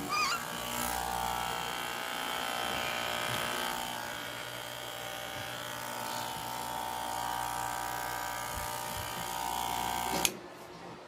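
Electric hair clippers buzzing steadily, then stopping abruptly about ten seconds in.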